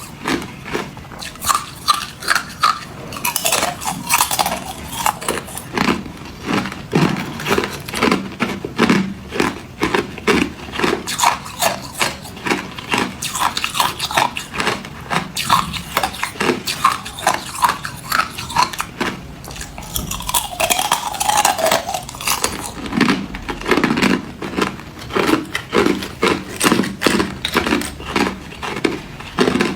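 Hard clear ice being bitten and chewed: a continuous run of sharp, crackling crunches, several a second.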